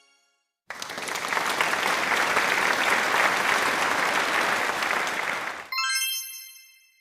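Applause sound effect: a crowd clapping for about five seconds, swelling and then fading. Then a bright ding rings out once and dies away.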